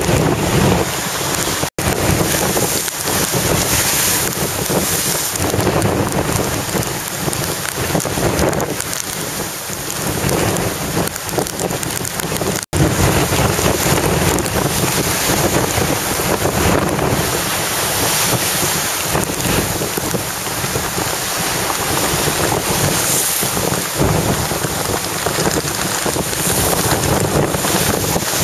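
Hurricane-force wind gusting hard against the microphone, with driving rain, a loud rushing noise that rises and falls with the gusts. The sound cuts out completely for an instant twice, about 2 and 13 seconds in.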